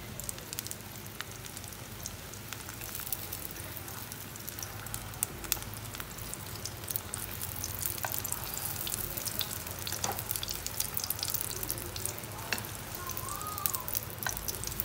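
Food frying in hot oil in a pan: a steady sizzle with frequent small crackling pops.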